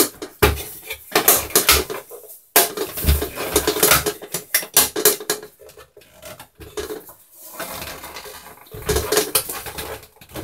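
Hard plastic knocking, clicking and clattering as a Tetra EX 800 Plus canister filter's housing is turned over and its head worked loose to open it.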